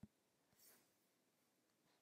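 Near silence, with a faint computer mouse click right at the start and a fainter one about half a second later.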